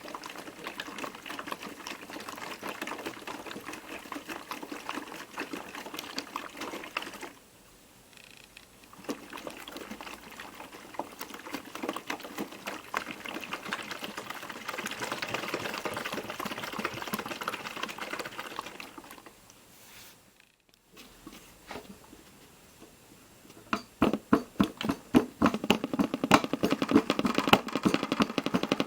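Piko WS5522 washing machine in its rinse, the drum turning the wet load with water sloshing, stopping briefly twice. Near the end a louder, fast rapid knocking starts as the intermediate spin begins.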